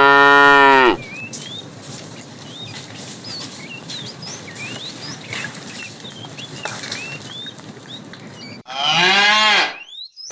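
Cows mooing: one long moo that ends about a second in, and a second, shorter moo about nine seconds in, falling in pitch at its end.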